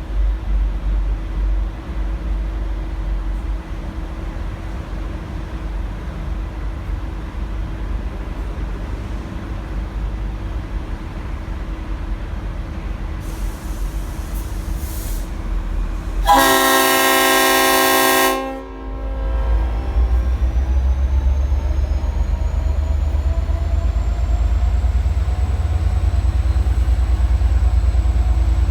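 V/Line N class diesel-electric locomotive idling with a low rumble, then one blast of about two seconds on its five-chime Leslie RS5T horn about sixteen seconds in. After the horn the engine's rumble builds and a high whine rises in pitch as the locomotive pulls away.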